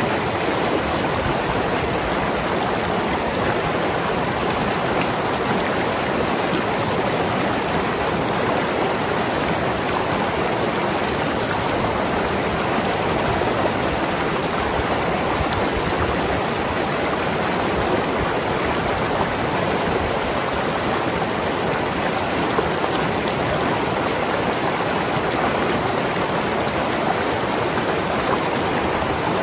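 Mountain river flowing and gurgling over rocks, a steady, unbroken rush of water.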